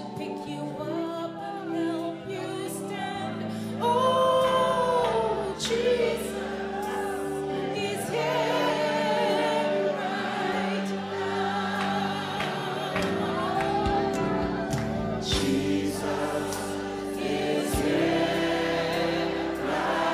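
Gospel worship singing: a woman sings lead into a microphone while a congregation sings along, over steady sustained accompaniment.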